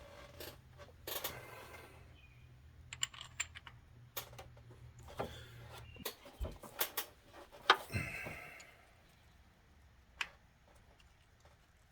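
Light metal clicks and knocks of small engine valvetrain parts being handled and set in place, irregular and loudest about three-quarters of the way in. A low steady hum cuts off about halfway through.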